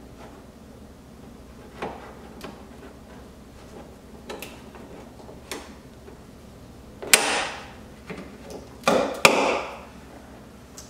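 Plastic trim snaps on a Camaro's trunk-lid cover popping loose under a nylon pry tool: a few light clicks, then two louder clicks about seven and nine seconds in, each followed by a short scraping rustle of the plastic cover.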